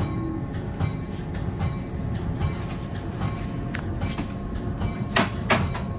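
Moving NJ Transit commuter train heard from inside a passenger car: a steady rumble of wheels on the rails, with two sharp knocks close together about five seconds in.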